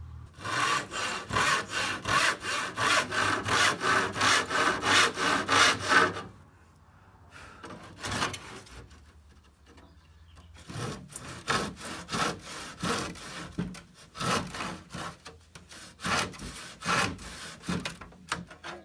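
Handsaw cutting across the ends of reclaimed wood boards to trim them flush: a fast, even run of push-and-pull strokes for about six seconds, a pause, then a second, less even run of strokes from about eleven seconds.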